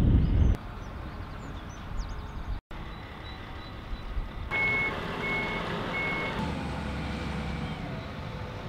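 Wind rushing over the microphone for the first half second. Then a heavy machine's engine runs steadily, and about halfway through a construction machine's reversing alarm beeps three times, evenly spaced.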